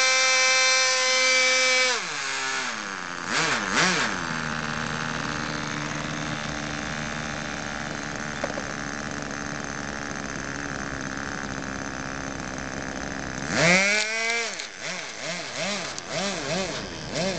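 Small radio-controlled model airplane engine running at high revs, then throttled back to a steady idle about two seconds in, with a couple of quick blips of the throttle. Near the end it is revved sharply up and then throttled up and down over and over.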